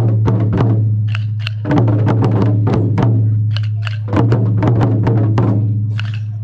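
Taiko drums struck with wooden bachi sticks: two heavy strikes, about a second and a half and four seconds in, each ringing on with a deep boom, with quick sharp wooden stick clicks between them.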